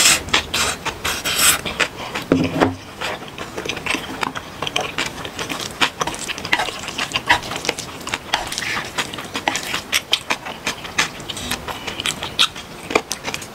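Jjajang ramen noodles being slurped and chewed close to the microphone: a fast, irregular run of wet mouth clicks and smacks, with chopsticks and a wooden spoon tapping as noodles are lifted from the pan.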